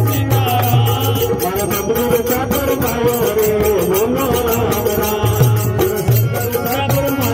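Devotional folk bhajan: a harmonium and a male voice singing a wavering melody, with small brass hand cymbals (manjira) clashing a quick, steady beat.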